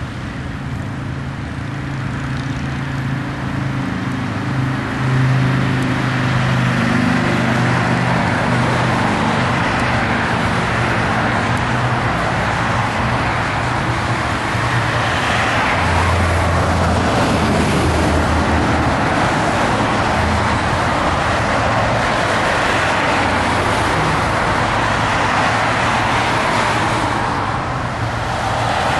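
Motor vehicles running with traffic noise: a steady low engine note under a constant haze of road noise.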